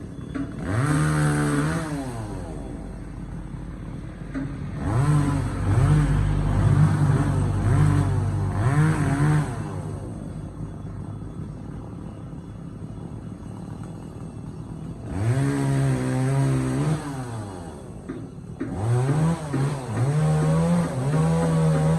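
Two-stroke chainsaw revved hard in several bursts, its pitch rising to full throttle and sagging back to idle between them, as it cuts wood.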